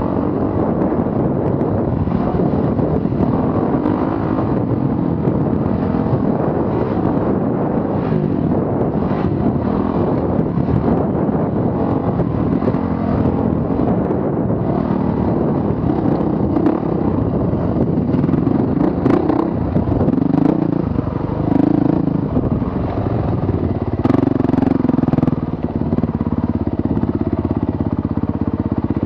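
Honda CRF450 single-cylinder four-stroke dirt bike engine running as it is ridden along a rocky trail, the engine note rising and falling with the throttle, with rattles and clatter from the bike over rough ground.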